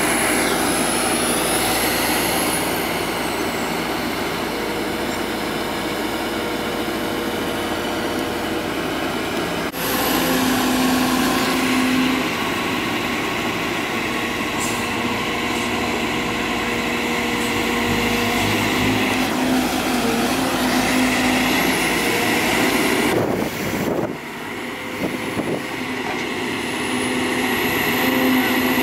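Heavy diesel machinery at work, an excavator's engine and hydraulics with dump trucks running, as a steady loud drone with whining tones that come and go. The sound changes abruptly about ten seconds in and dips briefly near the end.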